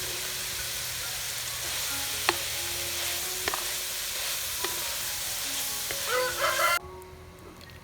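Food sizzling in a hot pan as it is stir-fried, with a few sharp clicks of the utensil against the pan. A rooster crows near the end, just before the sizzle cuts off abruptly.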